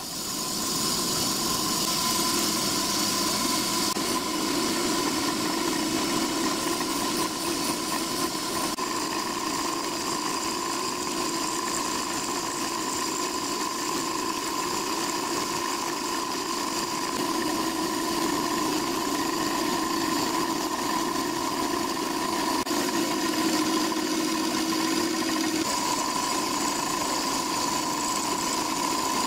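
Milling machine running steadily, its end mill cutting a 1/16-inch-deep recess into brass plate: an even machine hum with a held higher tone, which shifts slightly near the end.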